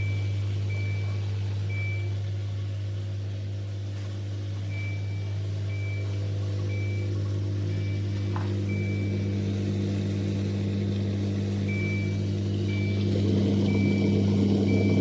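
Mini countertop dishwasher running with a steady low electrical hum that grows louder near the end. Short high beeps repeat about twice a second in three runs.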